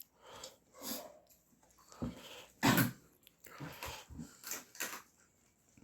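Scattered short mouth and eating noises, breaths and chewing, with one sudden louder burst about two and a half seconds in.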